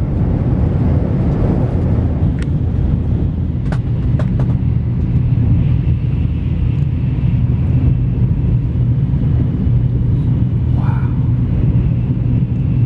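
Steady low rumble of a Tokaido Shinkansen bullet train running at speed, heard inside the passenger cabin, with a few faint clicks a few seconds in.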